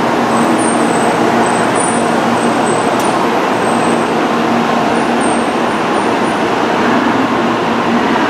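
N700-series Shinkansen train pulling out of the station at low speed: a steady, loud rumble of wheels and running gear with a faint, level hum under it.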